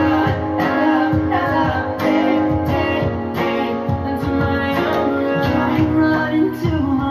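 Background music: a guitar-led song with singing and a steady beat.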